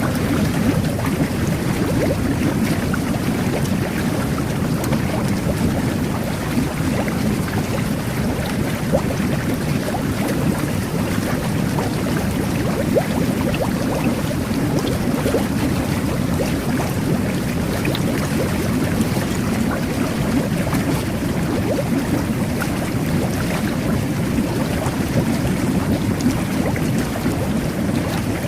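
Whirlpool jet bath running: water and air churning and bubbling steadily underwater, a dense low rumble with fine crackling of bubbles over it.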